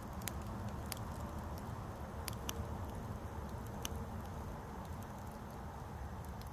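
Wood campfire crackling, with a few sharp, irregular pops over a low steady rumble.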